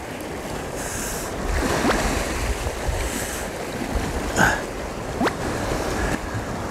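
Sea surf washing and breaking against shore rocks, a steady rushing wash, with wind buffeting the microphone and a brief sharper burst about four and a half seconds in.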